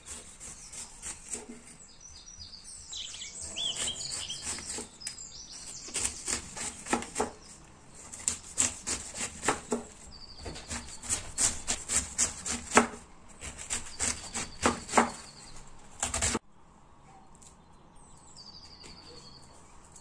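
Kitchen knife slicing through a raw white cabbage on a plastic cutting board: a run of crisp, irregular crunching snaps as the blade breaks through the tight leaves. The crunching cuts off suddenly about three-quarters of the way through.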